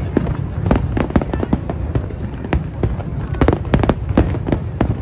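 Aerial fireworks display: many sharp bangs and cracks in quick, irregular succession over a steady low rumble.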